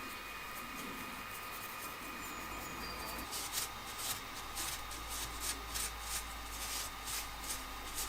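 A bristle paintbrush working oil paint in short scratchy strokes. Faint scattered ticks at first, then from about three seconds in a steady run of brushing strokes, about two to three a second.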